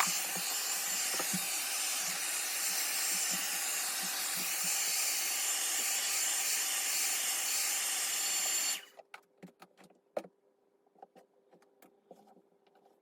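A hot-air blower, standing in for a heat gun, blowing steadily with a thin high whine to soften the back glass adhesive of a Samsung S8. It is switched off sharply about nine seconds in, followed by light clicks and taps of small tools on the phone.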